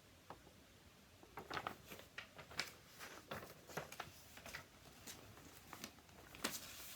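Faint handling noises: an irregular run of light clicks and rustles, starting about a second and a half in.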